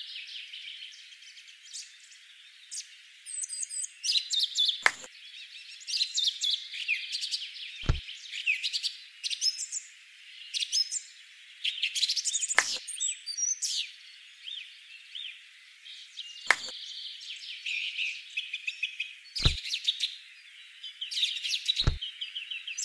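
Small birds chirping and twittering without a break, with a short, light tap about every three to four seconds.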